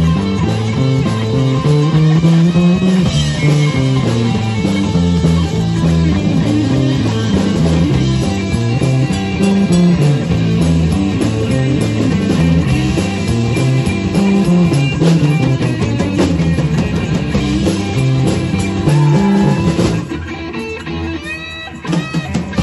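Live rock band playing: a lead electric guitar over bass guitar and a drum kit, through small amplifiers. About twenty seconds in the music drops to a quieter passage with bending guitar notes, and the full band comes back in near the end.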